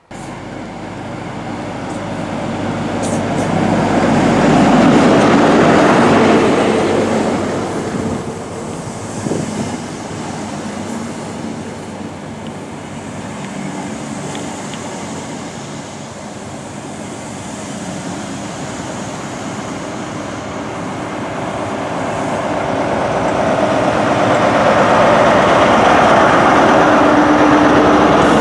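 ScotRail HST train running along the platform: the Mark 3 coaches rumbling past. The sound is loudest about five seconds in, then builds again near the end as the rear Class 43 power car's diesel engine hums close by.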